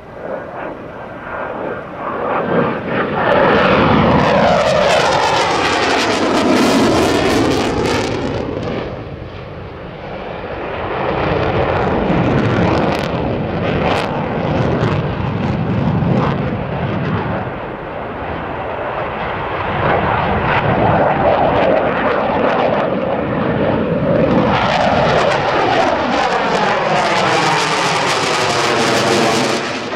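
Twin-engine F/A-18 Hornet-type fighter jet flying a display pass. The jet noise swells and fades as the aircraft passes: a loud pass a few seconds in, quieter stretches in the middle, and a second loud swell with a sweeping shift in pitch near the end.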